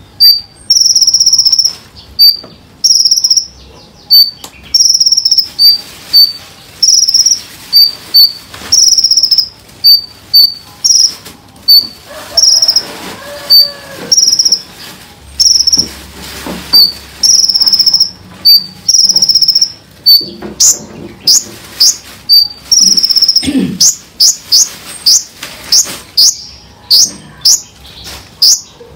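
Cililin bird song for a masteran: shrill, high, clear notes repeated about once a second, some short and some drawn out a little longer. In the last third they turn into rapid sweeping strokes, the tight 'tembakan' bursts.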